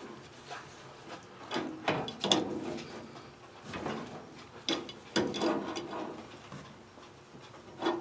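A hand wrench working on the boiler's metal pipe fittings: irregular clicks and clanks of metal on metal, several knocks with a short ring, while a fitting is being tightened.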